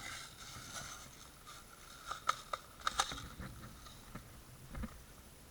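Rustling of gear, then a few sharp clicks and knocks about two to three seconds in, and a softer knock near the end: an airsoft gun's magazine being swapped.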